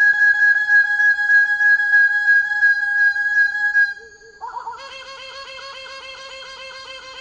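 Bird of paradise calling: a loud, fast run of repeated notes on one pitch, which breaks off about four seconds in and gives way to a quieter, lower series of repeated notes.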